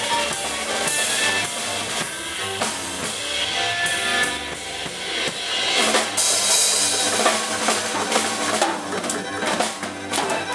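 Live band playing an instrumental passage with no singing: drum kit to the fore, with cymbal crashes about a second in and again around six seconds, over guitars, bass and violin.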